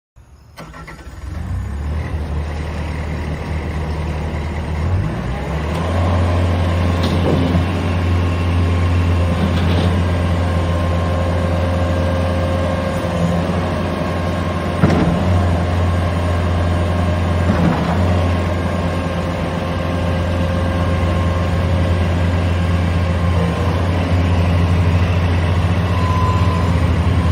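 Bobcat S650 skid steer's diesel engine starting up and running steadily. Its speed and loudness step up about six seconds in, with a few brief knocks along the way.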